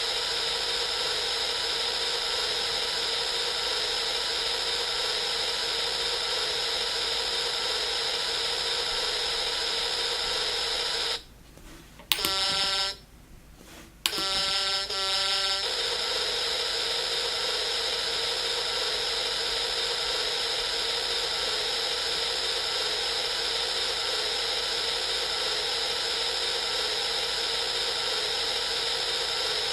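KP-SND44 electronic sound kit playing one of its synthesized truck sound effects: a steady, buzzing electronic hiss with a hum in it. It cuts out twice for about a second, a little over a third of the way in, and comes back each time with a sharp click.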